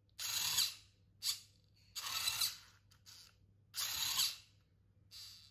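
Small hobby servo motor driving a 3D-printed gripper's jaws open and closed, whirring in short bursts of half a second or less, four loud ones with a couple of fainter ones between.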